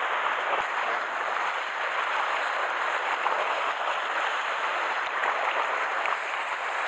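Sea surf washing against a rocky shoreline: a steady rushing hiss without breaks or pauses.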